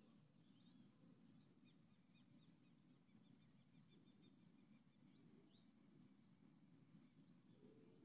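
Faint small-bird calls: a short high note repeated about once a second, a few quick rising chirps, and a brief run of rapid ticks in the middle, over a low steady background hum.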